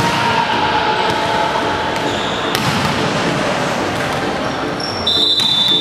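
Volleyballs being struck in a sports hall during a spike drill: a sharp smack of the ball roughly every two and a half seconds. Between the hits there are shoe squeaks on the court floor, with a high squeak near the end.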